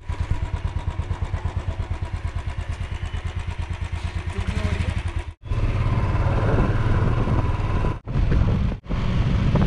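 Royal Enfield Classic 350's single-cylinder engine idling with an even thump, about eight beats a second. After an abrupt break about five seconds in, it runs louder and steadier as the bike is ridden.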